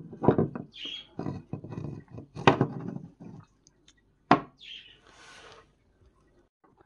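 Handling noise of an old wooden paint scraper with a metal blade clamp: irregular knocks and short scrapes as it is turned in the hands and set on a wooden workbench, with a sharp knock about four seconds in.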